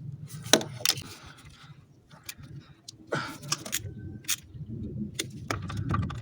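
Metal hand tools clicking and clinking irregularly as a wrench and socket are worked on the nuts of a diesel high-pressure fuel pump. One sharp click comes about half a second in and a louder clatter near the middle.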